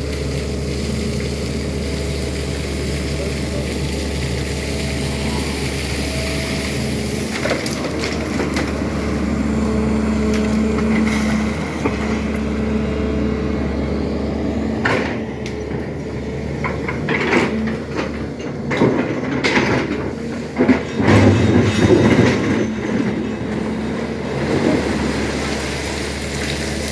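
SANY excavator's diesel engine running steadily, with irregular knocks and scraping from the digging in the second half.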